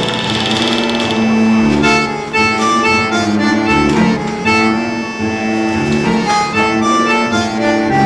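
Background music: a melody of short, separate notes over a steady held low note.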